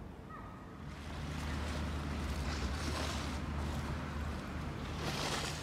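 Harbour ambience at a ferry quay: a steady low engine drone from a moored passenger ferry, with wind rushing on the microphone, strongest in a gust near the end. The sound steps up about a second in, after a quieter stretch of indoor hall tone.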